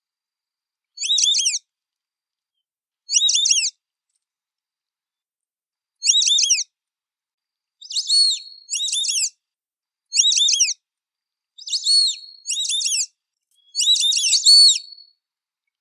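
White-faced whistling ducks giving their clear, high whistled calls. Each call is a quick run of descending notes. About ten calls come with short pauses between them, closer together in the second half, where calls sometimes overlap.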